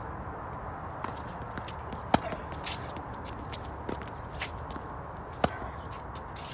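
Tennis rally on a hard court: two loud, sharp racket hits on the ball about three seconds apart, with fainter knocks and shoe scuffs in between.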